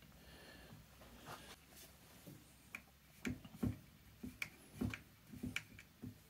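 Faint handling noises of small parts: a quiet start, then from about halfway a run of short light taps and clicks as the filler plug is fitted into the jet pump's metal nose cone.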